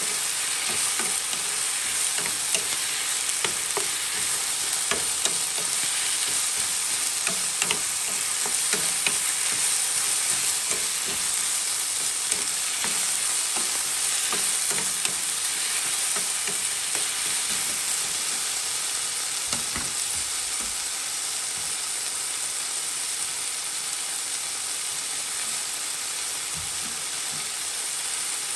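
Napa cabbage and chicken sizzling in a hot nonstick frying pan, stirred with a wooden spatula that knocks and scrapes against the pan. The stirring clicks thin out in the second half while the steady sizzle goes on.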